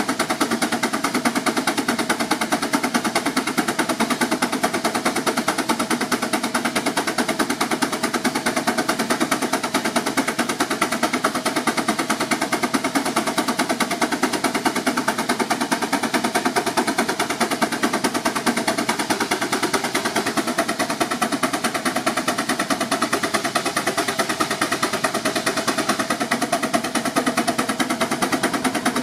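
6 HP Advance steam traction engine working under load on a belt dynamometer, its exhaust beating from the stack in a rapid, steady, even rhythm.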